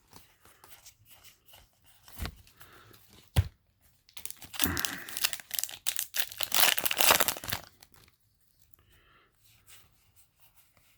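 A foil Yu-Gi-Oh! booster pack being torn open and crinkled: a few light taps, then a loud stretch of tearing and rustling from about four seconds in that stops suddenly about three and a half seconds later.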